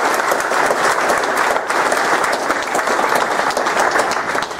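Audience in a conference room applauding: many people clapping steadily and loudly.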